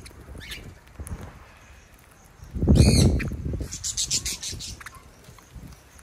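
Small parrots (sun conures and budgerigars) chirping and calling, with a loud harsh screech about three seconds in, followed by a brief burst of high chattering.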